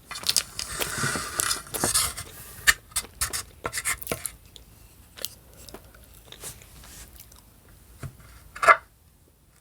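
A fork scraping and clicking on a plate while someone eats. It is busy for the first four seconds, then thins to scattered clicks, with one louder short sound near the end.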